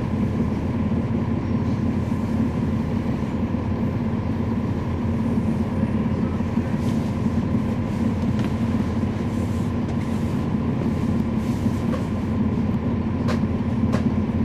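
Cummins ISL9 inline-six diesel engine of a NABI 40-SFW transit bus running steadily, heard from inside the passenger cabin as a constant low hum. A few sharp clicks come near the end.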